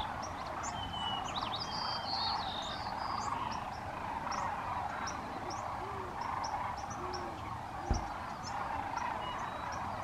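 A large flock of sandhill cranes and ducks calling together, a steady din of many overlapping rolling calls with short high chirps over it. A brief thump about eight seconds in.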